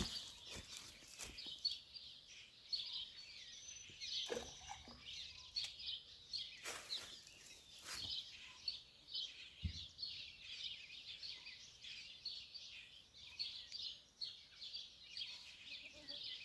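Faint chirping of small birds, many short calls overlapping, with a few scattered faint clicks and knocks.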